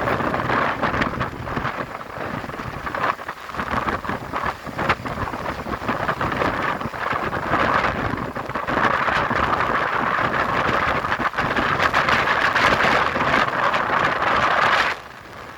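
Strong wind buffeting the microphone, a dense crackling rush that drops away suddenly near the end.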